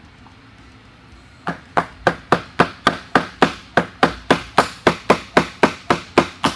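Rapid, evenly spaced hammer taps driving a hood hinge pin into its bore toward a set screw, about three or four strikes a second, starting about a second and a half in.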